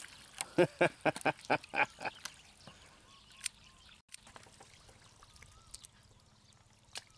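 A duck quacking: a quick run of about seven quacks within the first two seconds.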